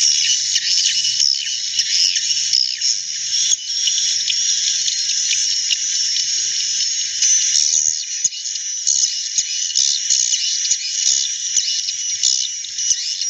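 Many swiftlets twittering together in a dense, unbroken chorus of high chirps. The uploader takes this natural, not harsh chorus as the sign of a large number of swiftlets roosting.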